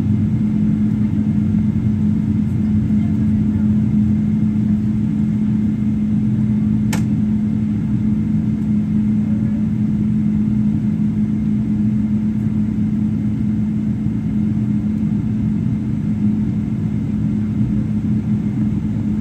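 Steady cabin drone of a Boeing 777-300ER's GE90-115B turbofans at low thrust while taxiing, a constant low hum with no spool-up, and a single sharp click about seven seconds in.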